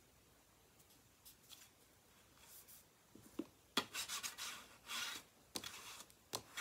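Cardstock being rubbed flat with a bone folder: faint paper rustling, then from about halfway through a run of quick scraping strokes across the card.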